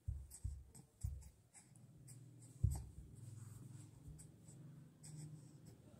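Soft rustling of a blanket and a few dull thumps as a baby kicks its legs on the bedding, most of them in the first three seconds.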